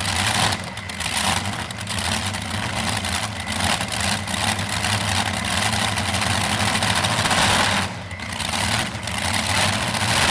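Two supercharged engines of a modified pulling tractor running at a loud, lumpy idle, dropping back briefly twice: once about half a second in and again near eight seconds in.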